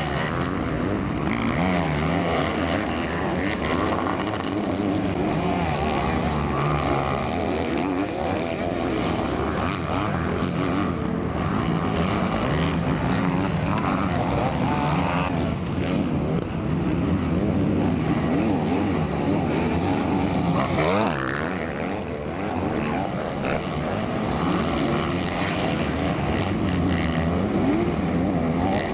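Several motocross dirt bikes racing, their engines revving up and falling back repeatedly as they accelerate and shift.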